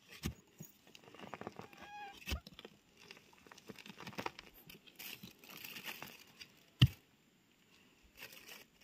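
Small metal hand spade digging into soil and leaf litter: scraping and rustling, with three sharp knocks as the blade strikes the ground. A brief high chirp sounds about two seconds in.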